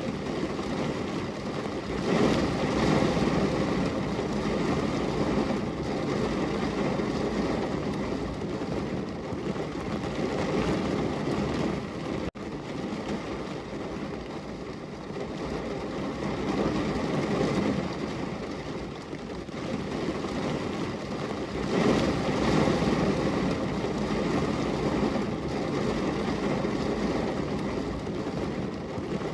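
Heavy rain pouring steadily onto a window. It swells louder about two seconds in and again about two-thirds of the way through, with a momentary break in the sound about twelve seconds in.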